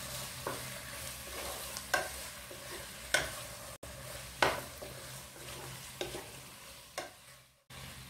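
Chicken pieces sizzling in spice paste in a nonstick pan, stirred with a wooden spatula. The spatula scrapes and knocks against the pan about every second or so over the steady frying hiss. The sound cuts out briefly twice.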